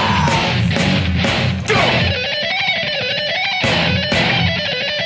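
Rock music: electric guitar over a steady drum beat. About two seconds in the drums stop and a bending guitar lead plays alone, then the drums come back near the end.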